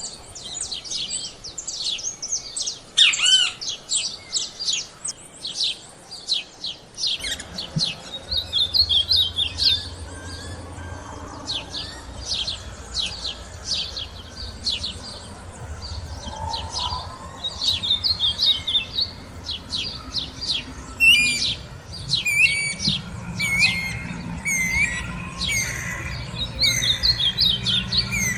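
Several birds singing together in a dawn chorus, quick overlapping chirps, trills and whistles from more than one species. A low steady hum comes in about a quarter of the way through and runs on under the song.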